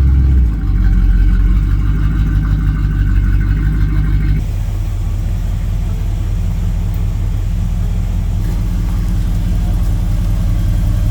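Stock 305 small-block Chevy V8 running with a throaty exhaust, settling into a slightly quieter, steadier idle about four seconds in.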